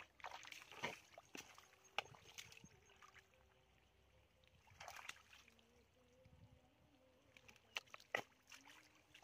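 Irregular splashing and squelching of muddy water, in short clusters: hands working through a shallow mud channel. The splashes are densest in the first second or so and again near the end.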